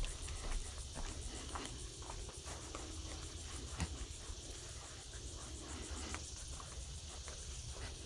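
Steady chorus of chirping insects, such as crickets, with soft, irregular footsteps of a walker on the trail.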